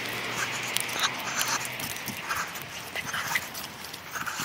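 English springer spaniel puppy on a lead making a string of short breathy sounds, with footsteps through grass.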